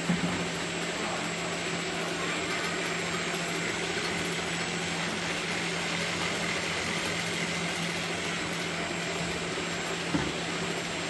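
Double-side bottle labelling machine running with a steady motor and conveyor hum. Short knocks of plastic jugs being set down on the conveyor come just at the start and again about ten seconds in.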